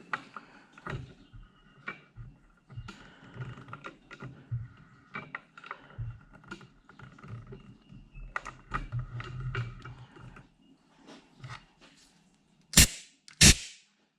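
Hand work with metal tools on a cast rotating base while its degree graduations are marked: irregular small clicks, taps and scrapes, then two sharp loud strikes about half a second apart near the end.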